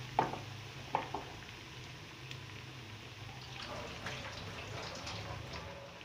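Besan-battered bread sandwiches shallow-frying in hot oil in a pan, a soft sizzle with scattered crackling pops. A few sharp pops come in the first second or so, and a busier patch of crackling follows a little past the middle.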